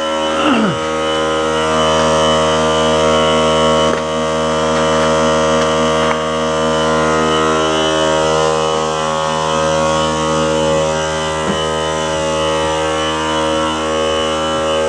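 Small portable electric air compressor running steadily, its motor and pump giving an even, unchanging hum.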